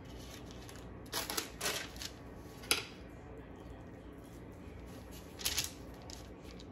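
Wax paper rustling and crinkling as a sheet is handled and laid flat on a wooden cutting board, in a few short bursts.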